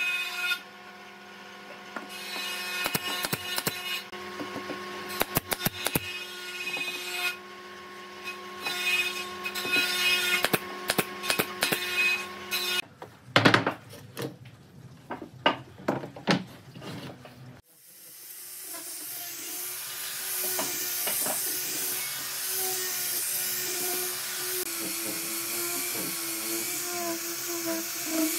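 A steady hum with scattered clicks and taps, then a few sharp knocks of wood on the workbench. About two-thirds of the way through, a handheld electric disc sander starts up, rising and then running steadily as it sands a wooden lattice panel.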